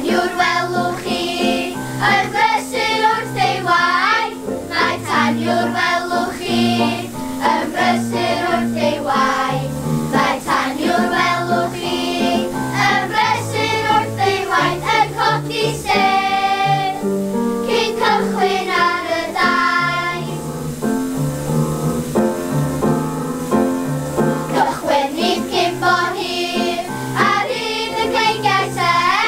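A children's choir singing a song together over an instrumental accompaniment with steady low notes.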